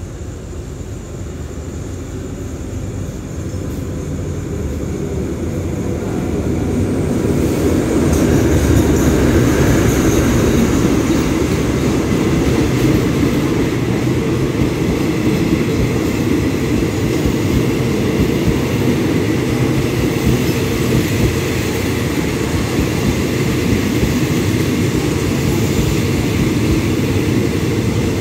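Alsthom diesel-electric locomotive hauling a passenger train into the station. Its engine and the rolling noise grow louder over the first several seconds as it approaches. The coaches then rumble past steadily as the train slows to stop, with a faint high squeal about a third of the way in.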